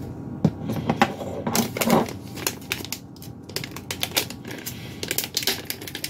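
Quick, irregular crinkles and small clicks of clear plastic packaging and a PCIe Wi-Fi card being handled, thickening from about a second and a half in.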